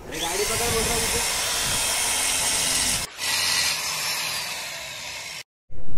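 Electric drill running, its bit boring into the underbelly exhaust of a KTM Duke 200 BS6. It spins up with a rising whine and drills for about three seconds, stops briefly, then drills for about two seconds more.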